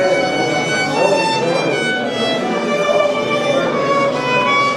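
Violin playing a melody of held notes that move from one pitch to the next.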